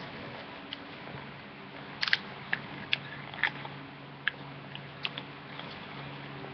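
Printed paper being folded and creased by hand, with a run of sharp crinkles and crackles between about two and five seconds in, over a steady background hiss and low hum.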